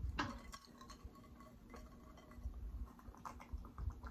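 Quiet eating sounds: a sharp tap about a quarter-second in, then soft chewing and scattered small clicks and taps. A glass is lifted to the lips for a sip near the end.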